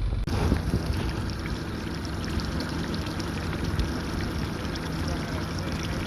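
Mercury outboard motor idling roughly, with the watery splash and trickle of its exhaust and cooling water running alongside; the rough idle shakes the motor.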